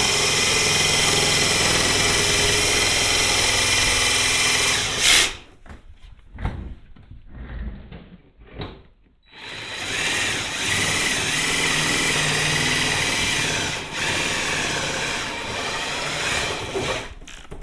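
Reciprocating saw (Sawzall) cutting through the front body panel of a Club Car DS golf cart: it runs steadily for about five seconds, stops for a few seconds of light knocks and handling, then cuts again until shortly before the end.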